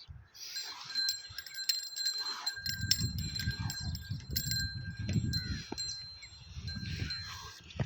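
Small metal bells jingling and ringing over and over, with a low rumble from about three to seven seconds in.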